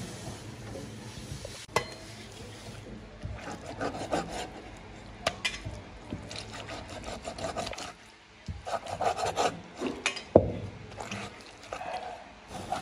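Kitchen knife slicing and scraping raw beef on a wooden chopping board, in irregular strokes with a few sharp knocks of the blade against the wood.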